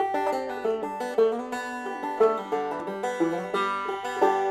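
Instrumental intro music: a plucked-string tune, notes picked in quick succession, ending on a chord about four seconds in that rings out.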